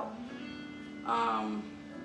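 Background jazz music with a steady held note, and a brief voice about a second in.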